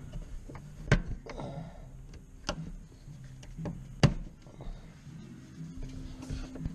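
Sharp clicks and taps of a pocket screwdriver working at the plastic lock tab of a fuel tank wiring connector, three louder ones about a second and a half apart, over a low steady hum.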